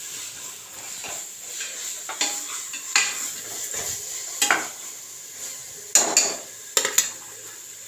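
A metal ladle stirring and scraping in a pressure cooker, knocking sharply against the pot several times. Onions and ginger-garlic paste sizzle faintly as they fry in oil.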